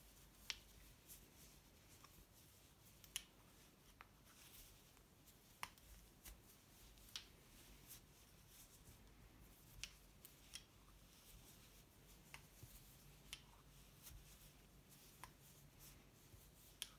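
Faint, irregular clicks of wooden knitting needles tapping together while knitting, about one a second.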